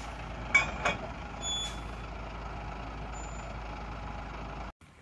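International flatbed dump truck's engine running steadily with its bed raised, with two sharp knocks about half a second in and a short high beep about a second and a half in. The sound stops abruptly near the end.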